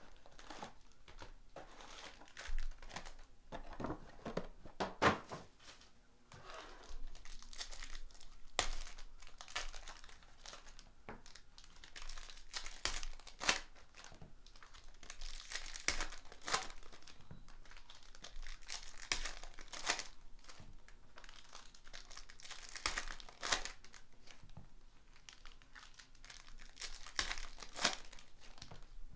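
Foil wrappers of 2018 Prizm football card packs crinkling and tearing as the packs are ripped open by hand, in short, irregular crackles.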